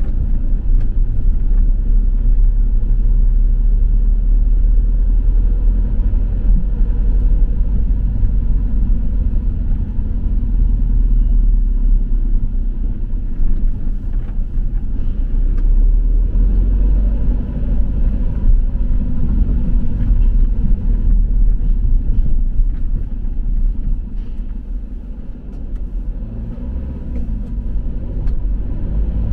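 Low, steady rumble of a delivery vehicle driving in city traffic, engine and tyre noise heard from inside the cab, easing off for a few seconds near the end.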